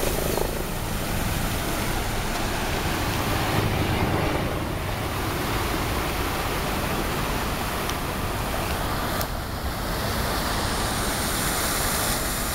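Steady rushing splash of fountain jets falling into a shallow reflecting pool, with city traffic noise mixed in underneath.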